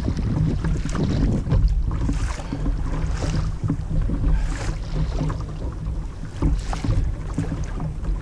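Wind buffeting the microphone in a steady low rumble, with water sloshing and slapping against a plastic kayak hull in irregular surges about once a second as a hooked fish tows the kayak along.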